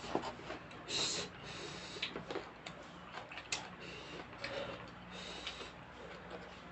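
Close-up eating sounds: chewing with scattered light clicks and taps of utensils, and a short hiss about a second in.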